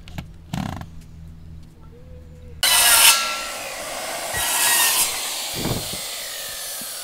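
A power saw cutting wood sheathing: a loud, hissy cut that starts suddenly about two and a half seconds in and swells twice, after a low steady hum and a few knocks.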